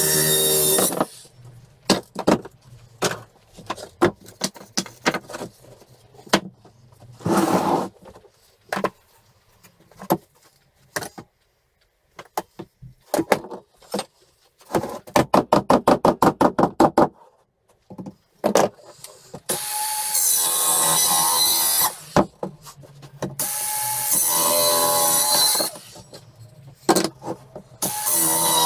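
Handheld power tool run in short bursts of two to three seconds against pallet boards, with knocks and clatter of wood between the runs. About halfway through comes a quick run of evenly spaced sharp clicks, about six a second.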